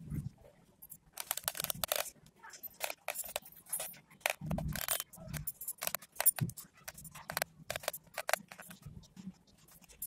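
Close handling noise as a 9 V battery, its wires and a hot glue gun are worked by hand: irregular scrapes, rustles and small clicks, with a duller thud a little before halfway.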